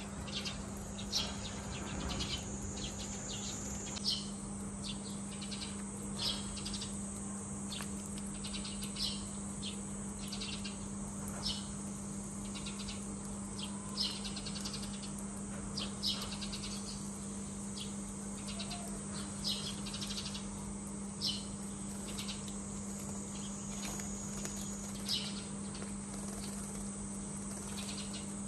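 Sparrows chirping, single short high chirps every second or two, over a steady low hum.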